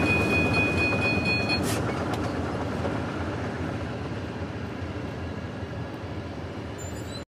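A long string of GE C44-9W diesel locomotives running light, without cars, their rumble fading steadily as they pull away. A steady high ringing from the grade-crossing bell stops about a second and a half in.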